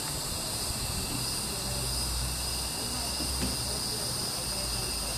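Steady chorus of crickets and other night insects in several high, unbroken pitches, over a low steady rumble.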